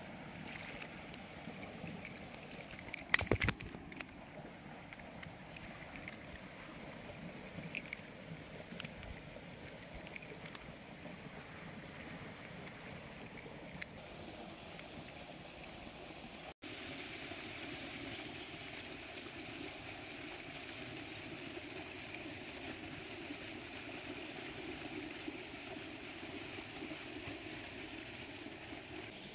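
Steady rush of fast-flowing canal water churning white over its concrete channel, louder and fuller after about sixteen seconds. About three seconds in comes a short burst of sharp knocks, the loudest sound.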